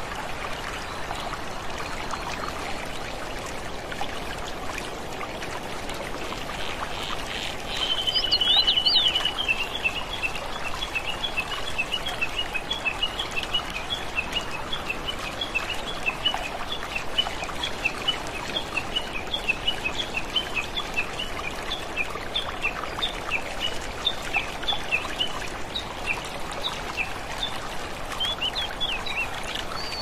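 Water trickling and babbling steadily, with a bird chirping over it: a short fast trill about eight seconds in, then a long run of quick, high chirps until near the end.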